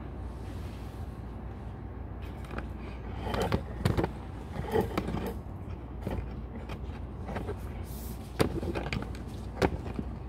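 Goats eating from a clear plastic tub: irregular knocks and clatter as their muzzles push against the plastic, over a steady low hum.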